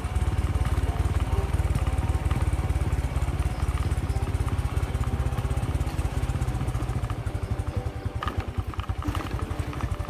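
Small motorcycle engine running at low speed, a steady low pulsing that grows more uneven in the last few seconds, with a couple of short knocks as it rolls over a rough gravel track.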